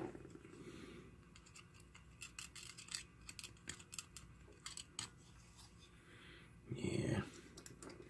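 Faint handling noise of plastic 3D-printer filament and a small filament welder tool being picked up and fiddled with: a scatter of light clicks and ticks, then one brief louder noise about seven seconds in.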